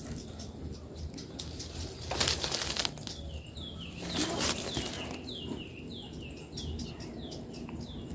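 Wings flapping in a few short noisy bursts, the strongest about two seconds in. Then, from about halfway, a bird calls in a run of short downward-sliding chirps, two or three a second.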